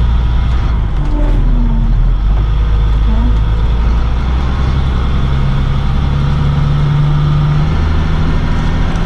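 Box truck under way, heard from inside the cab: a steady, loud low drone of engine and road noise. In the second half the engine note climbs slowly as the truck pulls.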